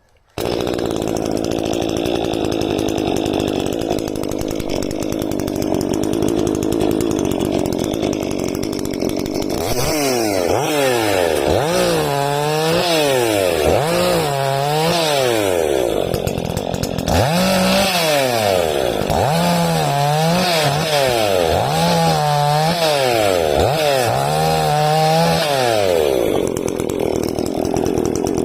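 Dolmar PS-420 C chainsaw's 42 cc two-stroke engine running steadily, then, from about ten seconds in, revved up and let back down about ten times in a row.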